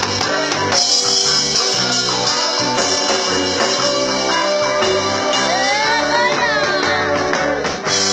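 Live reggae band playing loud, with drums, bass and guitar, and a voice singing over it in the second half.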